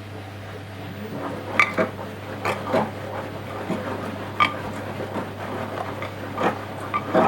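Washing machine mid-wash: a steady low hum, then about a second in the drum starts turning and wet laundry tumbles and sloshes with irregular knocks and splashes.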